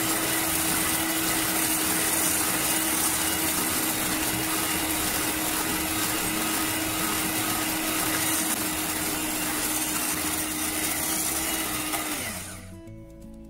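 Electric hand mixer running steadily at medium speed, its beaters whisking egg whites into stiff meringue. The motor hum holds one steady pitch, then sinks and stops near the end as the whites reach the stiff stage.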